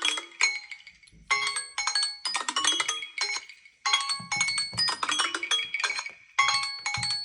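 Samsung Galaxy phone alarm sound playing: a bright, marimba-like chiming phrase of quick notes, repeating about every two and a half seconds with a short pause between repeats.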